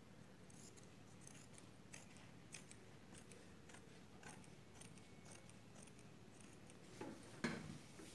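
Tailor's scissors cutting through folded cloth in a run of faint snips, about one every half second. Near the end comes a louder knock.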